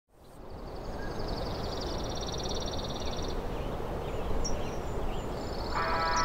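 Outdoor nature ambience fading in: a steady rushing background with a high, rapid trill over the first few seconds. Short chirps follow, and a string of lower, pulsed calls starts near the end.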